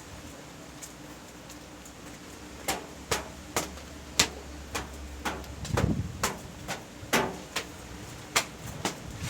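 A series of sharp, irregular knocks and taps, roughly two a second, starting about three seconds in over a steady low hum, with a couple of heavier thuds in the middle.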